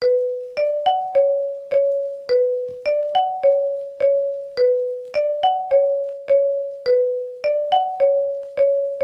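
A phone ringtone: a short repeating melody of single struck notes, about two a second, moving among a few close pitches, each note fading before the next.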